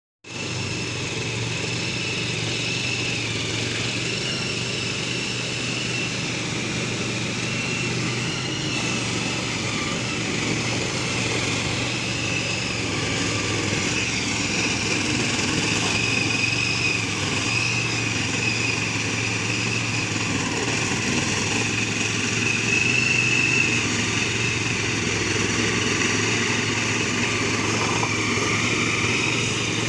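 Hand tractor's small engine running steadily as it works a wet rice paddy. It grows a little louder as the machine comes closer.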